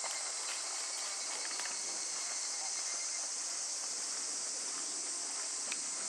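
Steady chorus of insects, an even high hiss, with faint hoofbeats of a horse cantering on arena sand.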